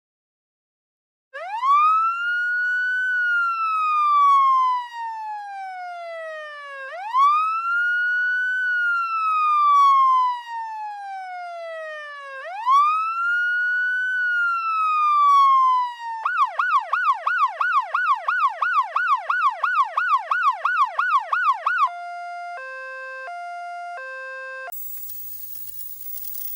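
Electronic ambulance siren: three long wail cycles, each rising quickly and then sliding slowly down, followed by a fast yelp warbling about three times a second, then a brief two-tone hi-lo alternation. Near the end a quieter steady hum with hiss takes over.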